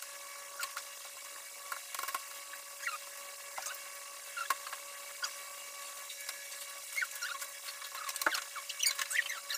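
Scattered light clicks, rattles and short squeaks from the metal frame of a folding camping chair being unfolded and set up, over a faint steady hum. The clicking and squeaking gets busier near the end.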